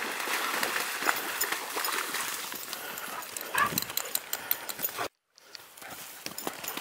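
Water splashing as a husky wades through the shallows. From about three and a half seconds this gives way to quick thumps and footfalls of running, broken by a brief dropout a little after five seconds.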